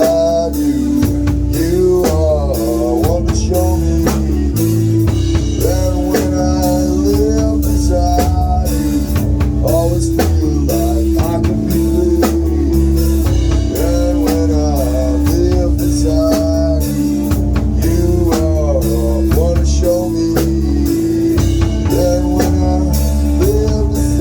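A band playing an instrumental passage: drum kit and bass under an electric guitar melody with bent, gliding notes over a held tone.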